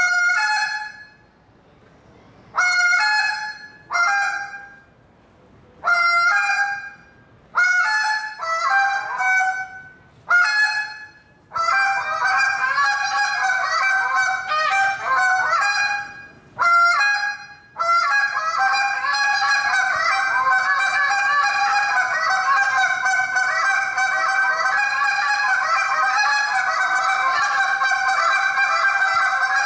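A goose call blown by a contest caller: single loud honks a second or two apart, then from about twelve seconds in a fast, unbroken run of honks and clucks that pauses briefly near seventeen seconds and carries on to the end.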